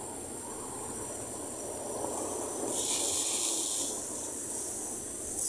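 Rotating lawn sprinklers spraying water over grass, a steady hiss that swells louder for about a second near the middle, over a low rumble.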